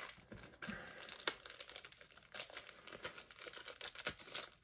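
Small toy packaging crinkling and clicking as it is handled and opened. Faint, irregular crinkles and small clicks, coming thicker in the second half.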